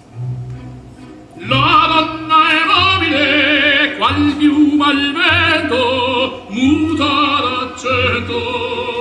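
Operatic singing with a strong vibrato over musical accompaniment, the voice coming in loudly about a second and a half in.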